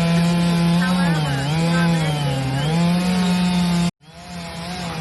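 Chainsaw running at high speed while cutting eucalyptus wood, its engine pitch sagging twice under load. Near the end the sound cuts out abruptly, then comes back quieter and builds up.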